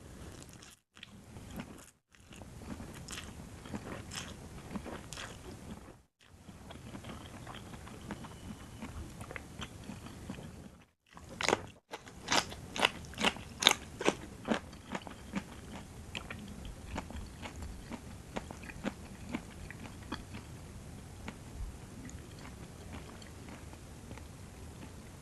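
Close-miked eating of a rice noodle and raw vegetable salad: crunchy bites and chewing. About twelve seconds in comes a run of loud, crisp crunches, several a second, which settles into softer steady chewing.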